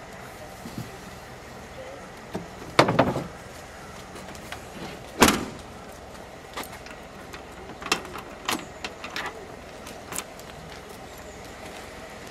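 Lada 2104 estate's tailgate slammed shut about five seconds in, after a heavy thump and rattle a couple of seconds earlier. Then come several sharp metallic clicks of a key working the tailgate lock.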